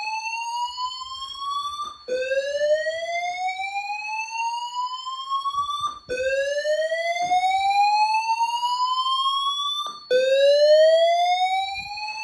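Fire alarm evacuation tone: a rising whoop that sweeps up in pitch over about four seconds, breaks briefly and starts again, with a steady high-pitched tone alongside. The smoke detector has gone into alarm from the smoke-machine haze and the system is signalling evacuation.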